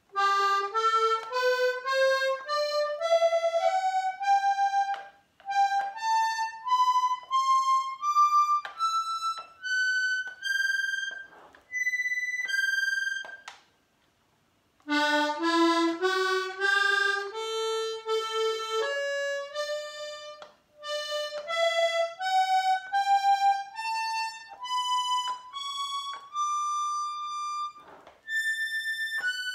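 Hohner Corona I diatonic button accordion sounding single notes one after another, climbing up the scale. About halfway through there is a short pause, then a second run starts from a lower note and climbs again.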